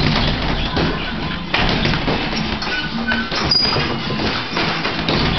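Boxing gloves landing on a heavy punching bag, a series of irregularly spaced thuds, over music playing.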